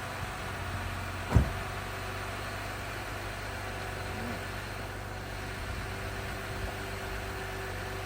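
Jeep engine idling steadily just after being started, with one sharp thump about a second and a half in.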